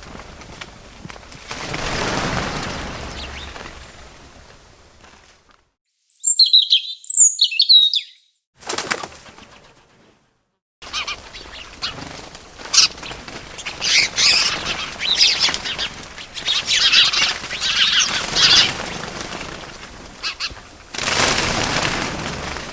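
Bird wings flapping in rushes, with a short run of high chirps partway through that stands out against dead silence.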